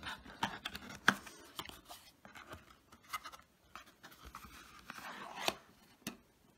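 A cough syrup box and bottle being handled: a scatter of light clicks, taps and short scrapes, with a longer rustling scrape about five seconds in.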